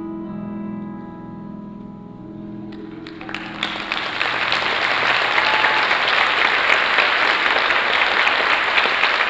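The last sustained piano notes of the music fade away, and about three seconds in an audience breaks into applause that quickly builds and stays loud.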